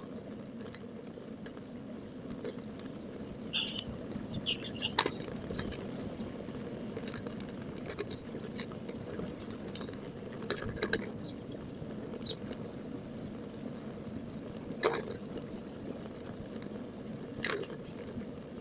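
A bicycle ridden along a tarmac path, played back at double speed: steady tyre and wind rush, with frequent small clicks and rattles from the bike and its camera mount, and a few sharper knocks as it goes over bumps.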